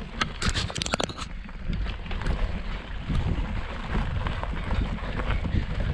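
Wind buffeting the microphone and the low rumble of a mountain bike rolling over a bumpy grass trail, with a few sharp clicks about a second in.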